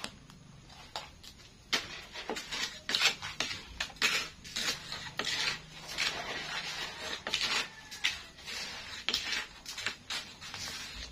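Metal spatula scraping and clinking against a wok while krupuk crackers are stirred as they fry, in irregular strokes of varying loudness.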